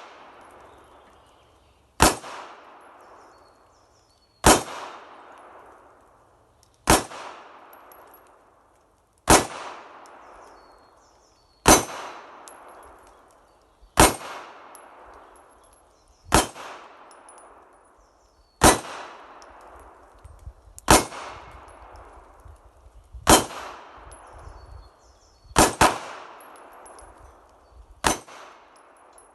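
Pistol shots fired singly at a slow, even pace, about one every two and a half seconds, twelve in all. Each crack is followed by a metallic ringing that fades over a second or so.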